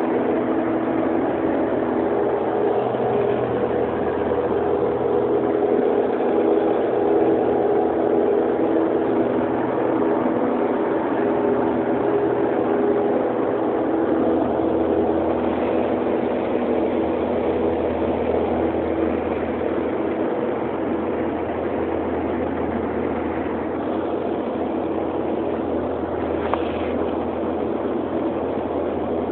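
Steady cockpit drone of a Piper PA-31P-425 Pressurized Navajo's twin turbocharged, geared Lycoming six-cylinder piston engines and propellers in cruise flight, heard from inside the cabin.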